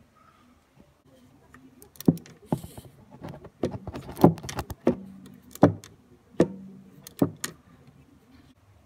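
Metal ratchet wrench with a bit socket being worked on the air-suspension valve of a Volkswagen Touareg's front air strut. It makes a series of sharp metallic clicks and knocks, some ringing briefly, about one or two a second, from about two seconds in until near the end.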